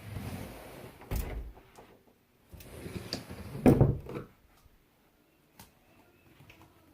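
Closet doors being handled, opened and shut: a sharp knock about a second in and a louder clatter near the middle, then quiet handling.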